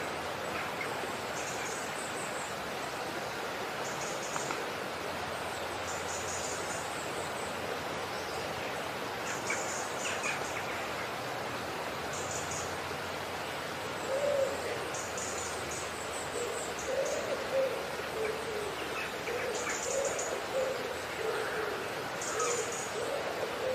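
Background animal calls over a steady hiss: short high chirps every second or two, and from about halfway a run of short, low, repeated calls.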